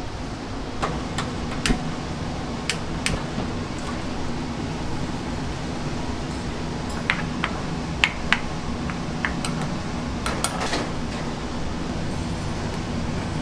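Clatter of dishes and utensils: scattered sharp clinks and knocks over a steady low hum.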